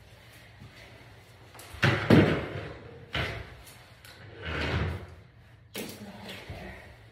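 A few dull thumps and rustling handling noises from a person moving about and kneeling on a tiled floor. The loudest is about two seconds in, with shorter knocks near three, five and six seconds.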